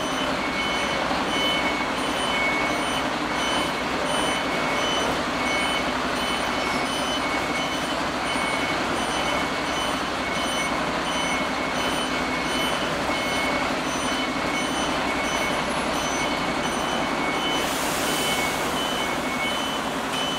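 Fire engine's reversing alarm beeping repeatedly at an even pace over the truck's running engine, with a hiss coming in near the end.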